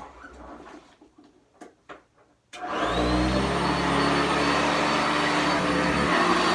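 Sanitaire SC679J upright vacuum cleaner switched on about two and a half seconds in. After a few faint knocks, the motor starts abruptly with a whine that quickly rises to pitch, then runs steadily.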